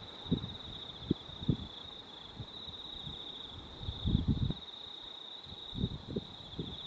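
A steady, high insect trill, like crickets chirring, with irregular low gusts of wind buffeting the microphone; the strongest gust comes about four seconds in.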